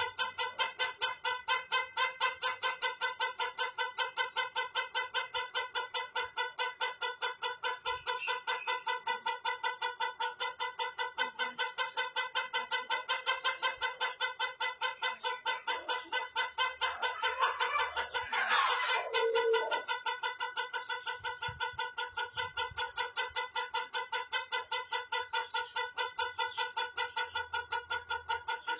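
A white rooster's drawn-out crow, heard as one unbroken, evenly pitched tone that pulses about four times a second with no pause for breath. About 17 seconds in, a shorter, rougher call rises over it and ends on a falling note.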